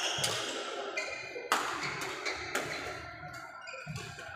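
Badminton racket strikes on a shuttlecock: two sharp hits, one at the start and a louder one about a second and a half in, with short squeaks of shoes on the wooden court floor between them.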